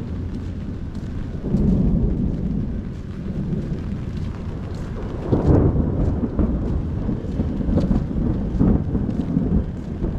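Rain falling during a thunderstorm, with thunder rumbling low. The rumble swells about one and a half seconds in and again about halfway through.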